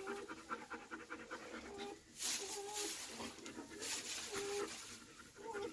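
Belgian Malinois bitch in labour panting rapidly, with short whining squeaks about once a second. The panting eases about two seconds in, and two short hissing bursts follow.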